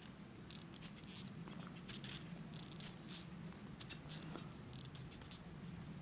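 Faint handling noise from a handheld camera: irregular scratchy crackles and rustles over a low steady hum.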